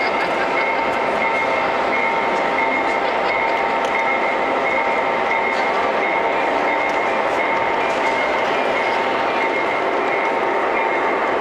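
O gauge three-rail model diesel locomotive running steadily along the track, over a continuous background of voices talking.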